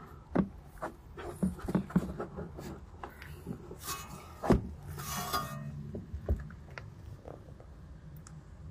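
Plastic mudflap being handled and pressed against a car's wheel-arch liner: scattered small taps and clicks, with two short rustling scrapes about four and five seconds in, over a faint low hum.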